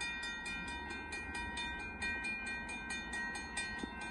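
Railroad grade-crossing warning bell ringing rapidly and steadily, about four strikes a second, with the gates down as a train approaches. A low rumble sits underneath.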